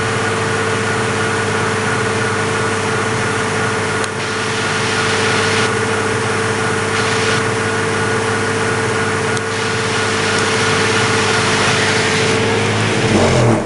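Vehicle engine held at steady high revs while its spinning wheel rubs on an oiled wooden board, then eased off near the end.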